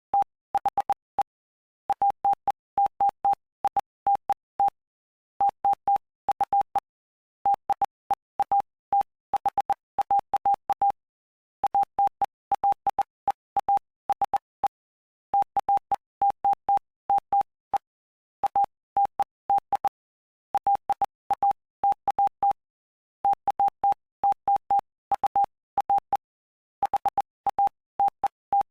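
Morse code: a single steady beep tone keyed on and off in dots and dashes, in groups separated by short pauses between words, spelling out text from the Gospel of Mark, chapter 5.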